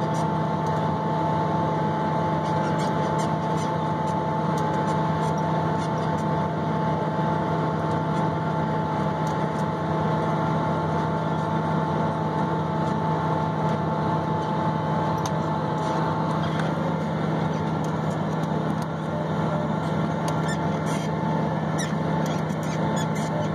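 Tractor engine running steadily under load while pulling a planter, heard from inside the cab as a constant drone with a steady whine on top. Scattered faint clicks come in during the second half.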